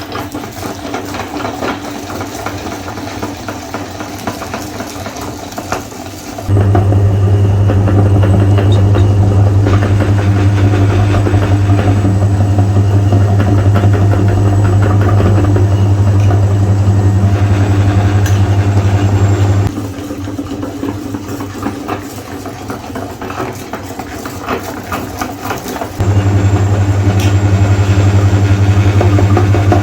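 Electric meat grinder running on Oreo cookies. A loud, steady low hum comes in about six seconds in, drops away near the two-thirds mark, and comes back near the end. Between those stretches there is a quieter rattling.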